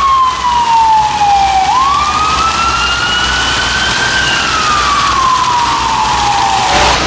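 Emergency vehicle siren in a slow wail: the tone falls, rises once about two seconds in, falls again and cuts off near the end. Steady splashing of fountain jets runs underneath.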